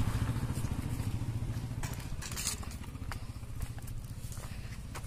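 Motorcycle engine idling with a steady, fast, even pulse, with a few light clicks over it.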